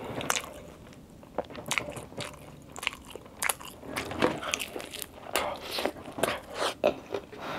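A person biting into and chewing crispy fried chicken (McDonald's Chicken McDo): a series of irregular crunches and chewing clicks.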